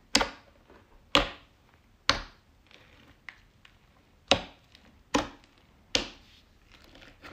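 Fingers pressing into a thick gray slime studded with sprinkles and foam beads, giving six sharp pops as trapped air bursts out.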